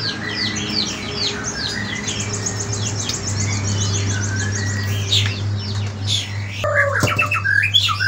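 White-rumped shama (murai batu) singing a rapid, varied song of quick sweeping whistles, with a fast trill of repeated high notes about two seconds in and lower, fuller phrases near the end. A steady low hum runs underneath.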